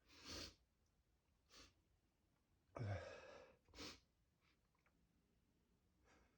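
A man's heavy breaths and sighs, about five in a row, the loudest a voiced sigh about three seconds in. It is the breathing of someone building up to a sneeze that doesn't come.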